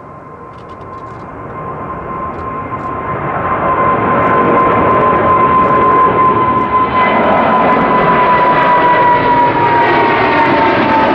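The two GE90 turbofans of a Boeing 777-200ER, running at climb power as the airliner passes overhead just after takeoff. The jet noise grows louder over the first four seconds and then holds steady. A fan whine runs through it and slowly falls in pitch as the aircraft goes by.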